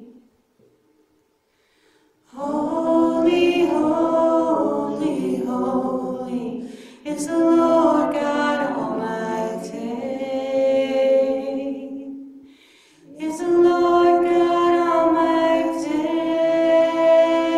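Two women singing a worship song into microphones. After about two seconds of quiet, they sing three long phrases with short breaks between them.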